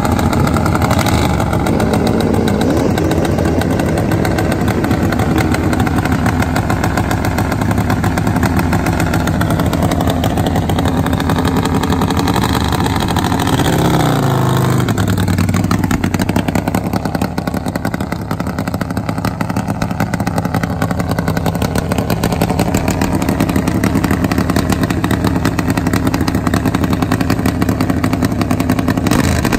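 Drag-racing motorcycle engine running at idle, with its pitch rising and falling once about halfway through as it is revved.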